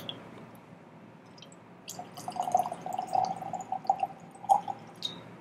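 Whisky poured from a bottle into a tulip-shaped nosing glass: a trickling pour with a steady ringing note from the glass, starting about two seconds in and lasting nearly three seconds, followed by a light click or two.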